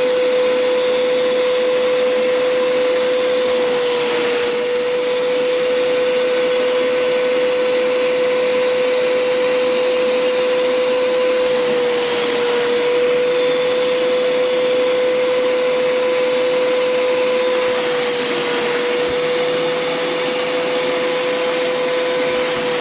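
Hoover Power Scrub Deluxe carpet cleaner running with its upholstery tool, a steady suction-motor whine over hiss. Three times the hiss surges briefly and the whine dips slightly.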